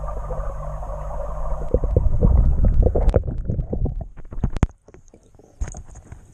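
A steady low hum heard with the camera underwater in the koi pond, then the camera is pulled up through the surface: loud sloshing and rumbling of water against its housing, followed by scattered drips and small knocks as it is handled wet in the air.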